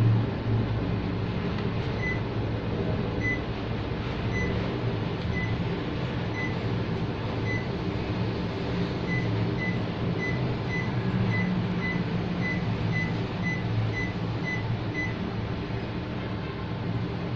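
Panasonic split air conditioner running with a steady low hum. Over it, a series of short high beeps, about one a second at first and then about two a second, stopping near the end.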